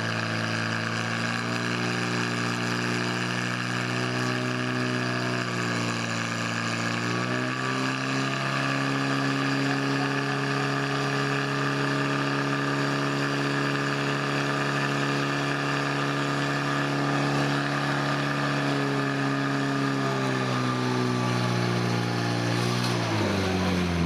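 Portable fire pump's engine running, pumping water through the attack hoses. Its pitch climbs at the start, shifts about six seconds in, and falls away near the end as it is throttled down.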